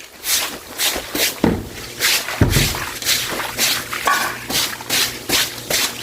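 Broom bristles sweeping a floor in regular strokes, about two a second, with a dull thud midway and a brief high squeak about four seconds in.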